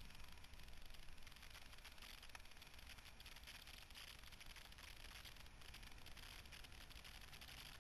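Near silence: a faint, steady hiss with a low rumble underneath.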